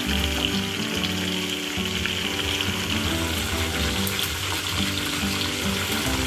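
Chicken pieces deep-frying in hot oil in a karahi, sizzling steadily, with background music over it.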